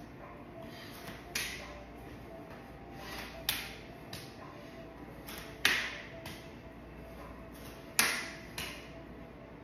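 Hand slapping bare leg during a one-leg balance drill: four sharp slaps about two seconds apart, each ringing briefly in the room, the last two loudest, with a few lighter taps between.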